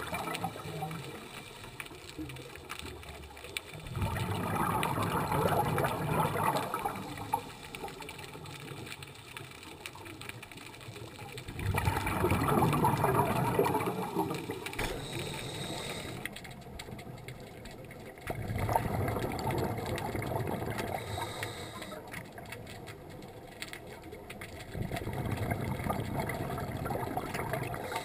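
A scuba diver's exhaled bubbles rumbling out of the regulator underwater, in four bursts of two to three seconds each, about every seven seconds, with a quieter water murmur between breaths.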